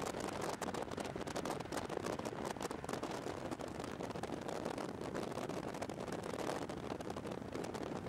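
Steady wind noise buffeting the microphone, mixed with the rumble of a passing diesel freight train.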